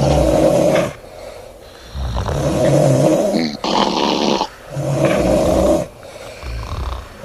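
A sleeping woman snoring loudly: long snores roughly every two seconds, with short quieter gaps between them.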